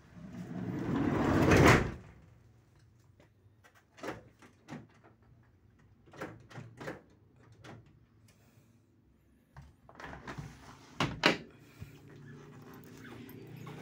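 Toyota HiAce van's sliding door being worked: it rolls along its track, growing louder, and stops with a bang about two seconds in. Then come scattered handle and latch clicks, and two sharp clunks close together about eleven seconds in.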